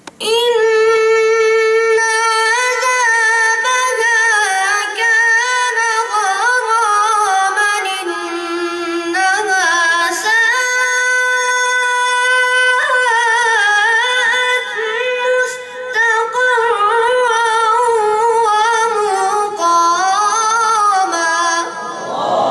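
Quran recitation by a young male qari in the melodic mujawwad style: one long, high-voiced phrase of held notes with rapid ornamental trills. The pitch sinks lower about a third of the way in, then holds steady notes before the ornaments resume.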